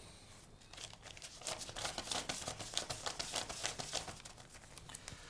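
Paper banknotes rustling and crinkling as they are handled and counted out, a dense run of quiet quick crackles starting about a second in and fading near the end.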